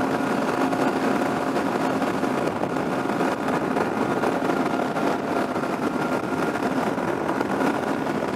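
Yamaha Ténéré 700's 689 cc parallel-twin engine running steadily at freeway cruising speed, a constant engine hum under a steady rush of wind over the rider's helmet.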